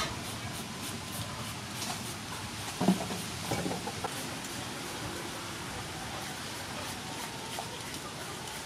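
Green mango being shredded with a julienne peeler, soft scraping strokes as the strands fall into a steel bowl. A short, louder sound stands out about three seconds in.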